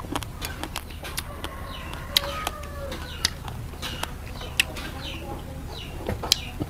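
Metal spoon clicking and scraping in a ceramic bowl, with close chewing and lip smacks. Behind it, birds chirp repeatedly and a chicken clucks.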